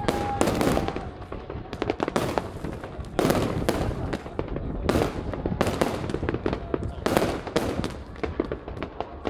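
Aerial fireworks going off in a dense barrage: sharp bangs of bursting shells come several times a second, unevenly spaced, with crackling between them.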